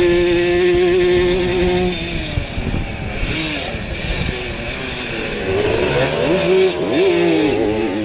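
Two-stroke Simson racing moped engine at high revs, heard onboard. It holds one high pitch for about two seconds, drops, then revs rise and fall repeatedly near the end as the throttle comes off and on.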